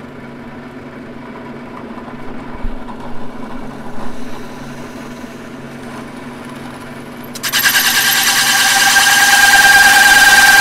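Drill press running with a circle cutter spinning in it. About seven and a half seconds in, the cutter bites into HardieBacker cement board, and a loud grinding noise with a steady whine starts and grows louder.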